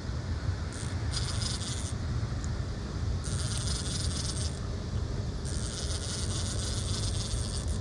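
Fishing reel whirring in three spurts of a second or two as a hooked fish is fought on a bent rod, over a steady low rumble.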